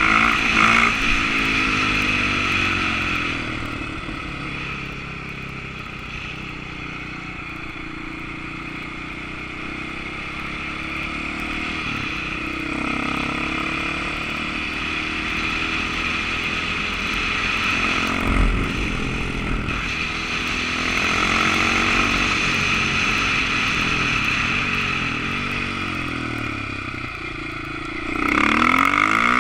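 KTM supermoto's single-cylinder engine under way, its revs rising and falling, with wind rushing over the microphone. The engine note drops back for several seconds after the start, there is a low thump about two-thirds in, and the engine opens up loudly again near the end.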